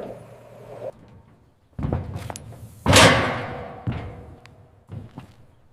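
Livestock truck's loading ramp being shut and latched. A heavy thud comes first, then about three seconds in a loud slam that rings out and fades, followed by smaller knocks.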